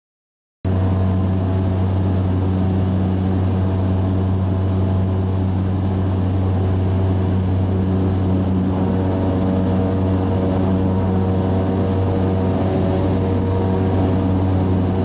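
Steady drone of a light propeller aircraft's engine in flight, heard from on board. It starts abruptly just after the start and holds at one pitch throughout.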